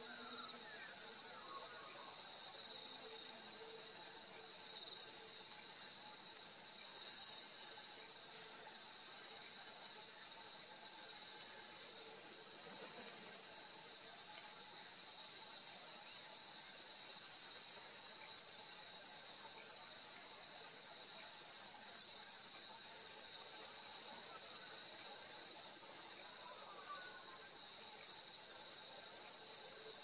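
Crickets chirping in a steady chorus: a continuous high trill with a fast, even pulse. Faint short calls can be heard near the start and again near the end.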